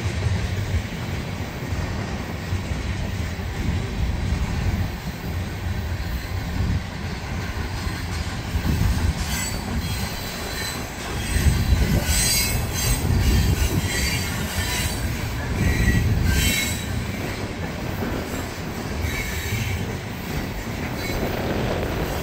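BNSF freight train's boxcars rolling past, a steady low rumble of steel wheels on rail. Intermittent high-pitched wheel squeal sets in about nine seconds in and comes and goes for several seconds.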